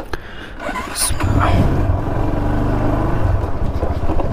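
Motorcycle engine running steadily after coming in about a second in, its pitch briefly rising just after it starts.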